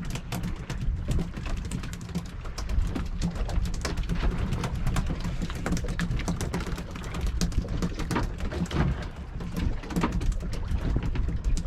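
Freshly caught mackerel flapping against a hard surface, a fast irregular patter of taps, over a low steady rumble.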